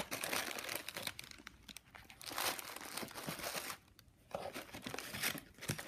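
Tissue paper and packaging crinkling and rustling in irregular stretches as a hand rummages through a gift box, pausing briefly about two-thirds of the way through.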